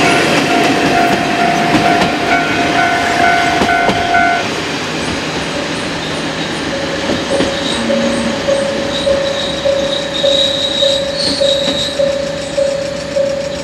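A JR Kyushu KiHa 40-series diesel railcar runs into the station close by, wheels clattering on the rails, then brakes to a stop with a faint high squeal. A level-crossing warning bell rings throughout. It cuts off about four seconds in, and a lower-pitched bell starts ringing in an even rhythm about two seconds later.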